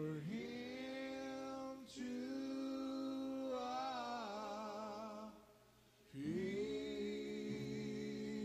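Live bootleg recording of an early-1970s Christian band playing back: singing in long held notes with vibrato, with a short pause about two-thirds of the way through.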